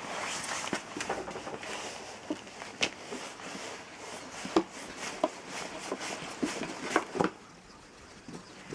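Homemade wooden stick-turned potter's wheel spinning on its metal pin: a rushing whir with irregular wooden clicks and knocks, the sharpest about four and a half and seven seconds in, easing off near the end.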